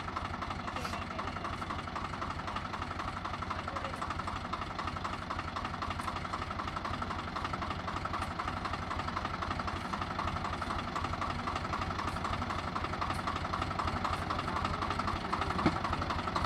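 Swaraj 735 FE tractor's three-cylinder diesel engine running steadily with a fast, even diesel chatter, getting a little louder toward the end. A single sharp knock sounds near the end.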